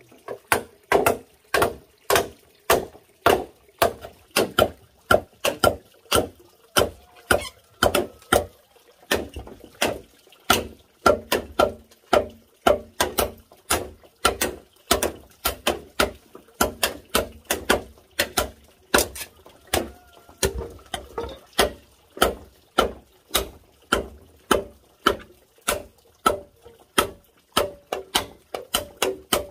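Machete chopping into a fresh green bamboo pole, sharp strikes at about two a second, cutting a notch into it.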